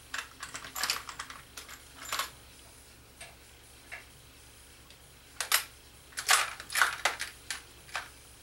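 Small metal hardware such as bolts clicking and clinking as it is handled on a metal panel, in irregular bursts of quick taps, busiest in the second half.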